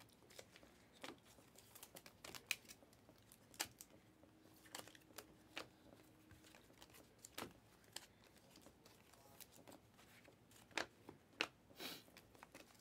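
Panini Prizm basketball cards being slid one by one off a stack in the hand: faint, irregular flicks and clicks of card against card, about a dozen of them.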